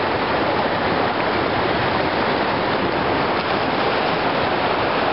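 Shallow, rocky mountain creek rushing over stones in a steady, even rush of water.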